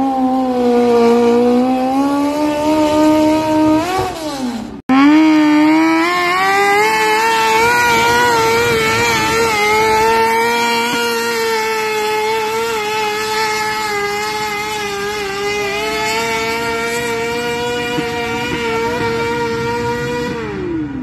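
Motorcycle-engined mini modified garden tractors at high revs under load while pulling a sled. The engine note sags and climbs, breaks off briefly about five seconds in, then holds high on a second pull before the pitch falls away near the end.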